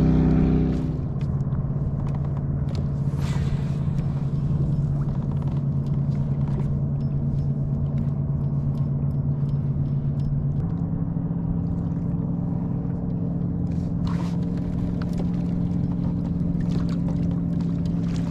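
Motorboat engine running steadily, its pitch stepping up slightly about ten seconds in, with scattered clicks and knocks over it.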